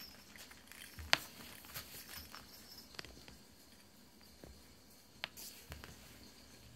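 Toy poodle puppy chewing and pawing a plastic ball toy on a mat: scattered light clicks and soft rustles, the sharpest click about a second in.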